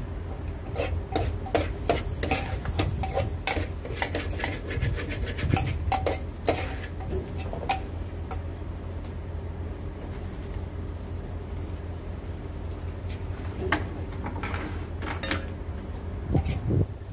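A metal spoon scraping and clinking against an aluminium pan as food is stirred on a gas stove. The clinks come thick for the first several seconds, ease off, then pick up again near the end, over a steady low hum.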